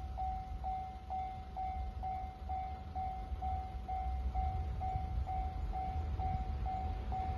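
Japanese level-crossing warning bell ringing: one electronic 'kan' tone repeated evenly about twice a second, over a low rumble.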